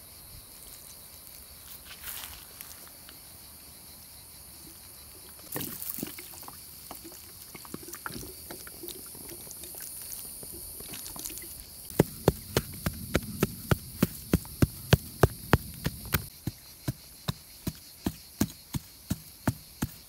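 Water pouring from a plastic jerrycan onto loose soil. From about halfway through comes a run of regular soft knocks, two to three a second, as hands pat and press the wet soil. Cicadas buzz high and steady in the background.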